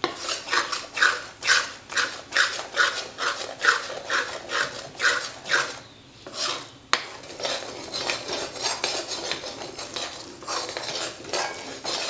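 Steel spoon scraping and stirring besan roasting in ghee in a metal kadhai, in quick regular strokes about two a second. The stirring pauses briefly about six seconds in, a sharp knock follows a second later, then the scraping goes on.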